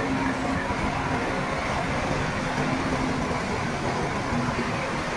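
Heavy diesel earthmoving machinery running steadily: a continuous engine drone and rumble, with a faint hum that comes and goes.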